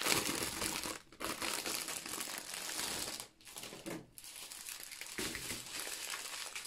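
Thin clear plastic packaging crinkling and rustling as the bag of diamond-painting drills is opened and the strips of small sealed drill bags are pulled out. There are brief pauses about a second in and again between three and four seconds.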